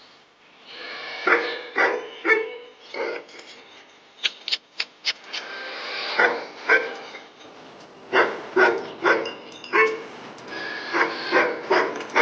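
Short animal calls repeated in clusters of two to four, with a few sharp clicks in between.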